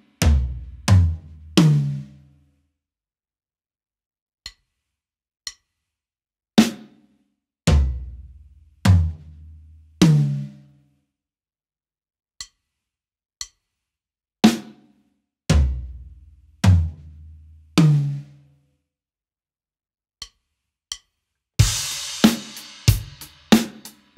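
Drum kit (Sonor SQ2 birch toms, bronze snare) playing a slow quarter-note fill: four single ringing strokes about a second apart, moving between snare and toms, some deep and boomy. The fill is heard three times, twice with a gap of faint clicks on the beat between, and near the end a groove with hi-hat and bass drum comes back in.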